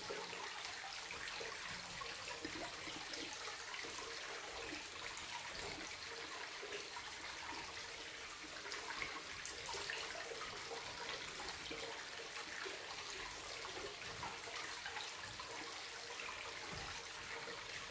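Steady, even hiss of water in the background.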